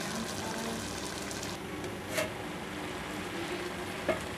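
Milk with grated bottle gourd boiling hard in a steel pot: a steady bubbling, with a short sharp knock about two seconds in and another near the end.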